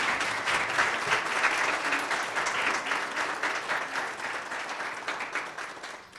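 Audience applauding, many hands clapping together, dying away near the end.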